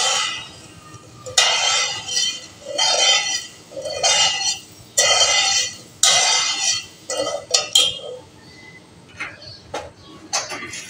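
A spoon stirring sugar and water in a pan, scraping across the bottom in repeated strokes about one a second, to dissolve the sugar for syrup; a few sharp clicks of the spoon against the pan near the end.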